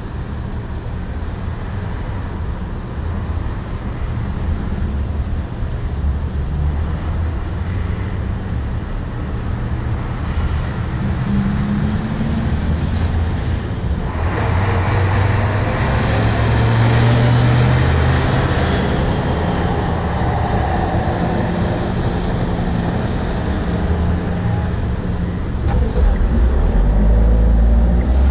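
A vehicle engine running steadily with a low rumble. A rushing noise swells about halfway through, and the rumble grows louder near the end.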